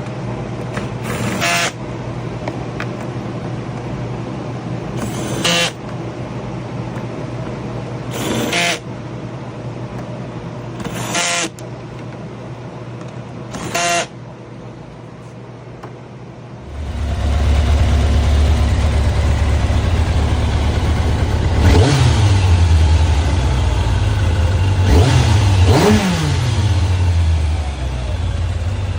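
Kawasaki ZX-11 inline-four motorcycle engine starting up about two-thirds of the way in and idling, blipped twice with quick rises and falls in revs, running on fresh spark plugs fitted to cure a misfire on cylinder four. Before it starts there is a steady hum broken by five short sharp noises.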